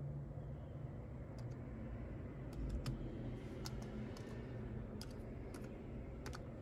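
Laptop keyboard keys pressed one at a time: slow, irregular clicks as a short name is typed in.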